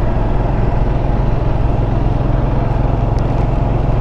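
Royal Enfield Himalayan's 411 cc single-cylinder engine running steadily at cruising speed, with a constant rush of wind and road noise.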